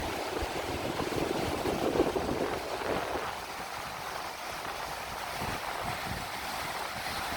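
Steady rush of the flooding Nooksack River, louder for the first three seconds, with wind buffeting the microphone.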